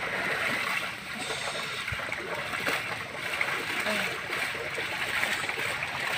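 Muddy water splashing and sloshing as a yoked pair of water buffalo wade through a flooded rice paddy dragging a wooden plough.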